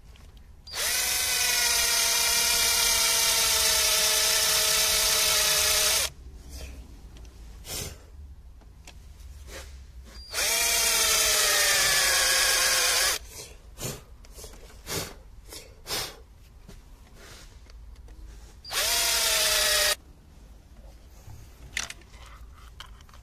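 Cordless drill boring into metal in three runs: a long one of about five seconds, a shorter one of about three, and a brief one near the end. The motor's whine sags in pitch as the bit bites at the start of each run, with a few short knocks between runs.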